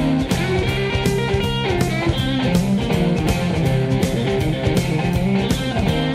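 Rock music with electric guitar over a steady drum beat.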